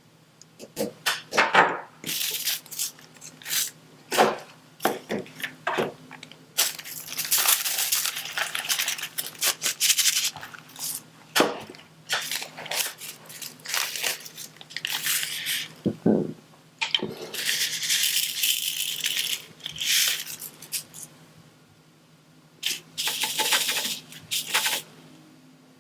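Diamond painting at close range: small plastic resin drills rattling and clicking in a tray, with taps from the drill pen and crinkly rustling stretches. The sounds come as irregular clicks and short bursts, quieter for a moment near the end.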